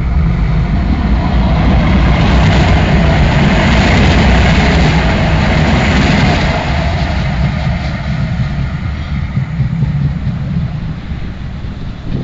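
Sheffield Supertram tram passing close by on its rails, its running noise loudest about two to six seconds in and fading as it draws away.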